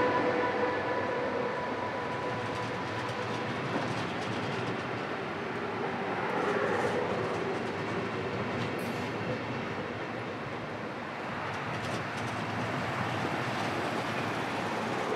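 Deutsche Bahn Intercity coaches rolling past on the track: a steady rumble of wheels on rail with a few clicks over the rail joints. The electric locomotive's whine fades out within the first second as it moves away.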